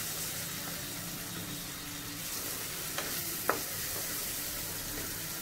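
Ground masala paste sizzling steadily in oil in a steel kadai as a wooden spatula stirs and scrapes it, with two light knocks of the spatula on the pan about three seconds in. The paste is being fried until the oil comes up to the surface.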